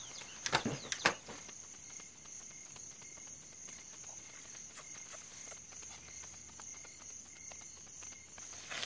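Crickets trilling steadily in a high, unbroken tone. A few sharp clicks or knocks come in quick succession about half a second to a second in, with fainter ones near the middle and end.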